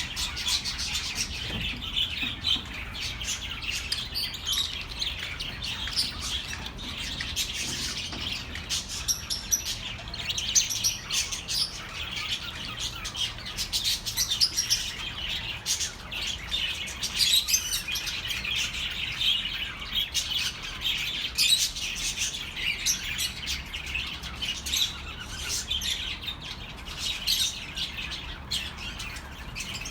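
A flock of budgerigars chattering and chirping continuously, many short warbling calls overlapping.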